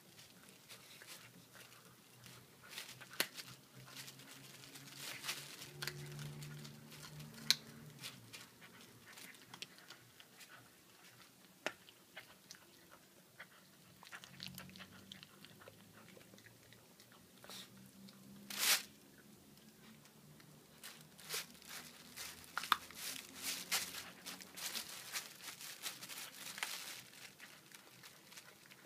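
Puppy chewing raw meat: irregular wet bites and crunches, with one louder crunch about two-thirds of the way through.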